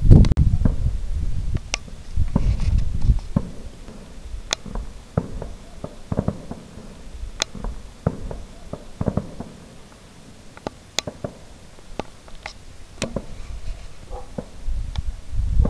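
Distant fireworks going off: low rumbling booms, the loudest right at the start, another burst a couple of seconds in and more near the end, with scattered sharp cracks in between.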